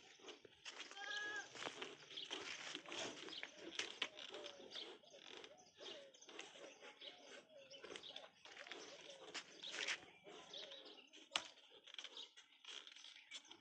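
Faint farmyard sounds: scuffing and rustling clicks, with a short animal call about a second in.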